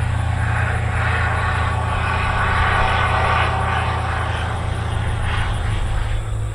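Light single-engine bush plane at full power on its takeoff run and climb-out, a steady engine and propeller drone that swells a few seconds in and eases as it pulls away near the end.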